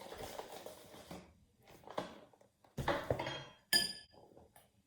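A spoon scraping and knocking against a bowl as thick, dough-like slime is stirred, with one sharp ringing clink of the spoon on the bowl near the end.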